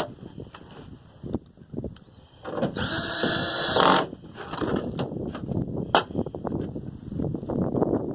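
A power driver with a Torx bit runs for about a second and a half, driving a tailgate panel screw. It is followed by a run of irregular clicks and rattles of tool and metal handling.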